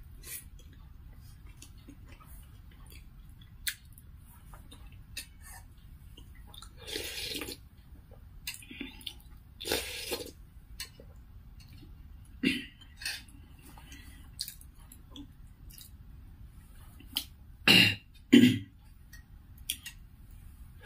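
Slurping spoonfuls of chicken soup, with small mouth and spoon clicks and chewing between sips. The slurps come a few seconds apart, the loudest two close together near the end.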